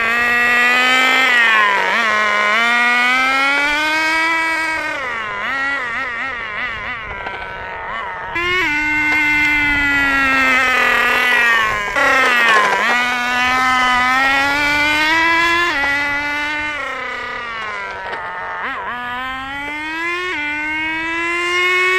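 Small two-stroke nitro glow engine (HPI Nitro Star T-15) of a 1/10-scale RC touring car running at high revs. Its pitch climbs under throttle and drops sharply each time it backs off, about four times.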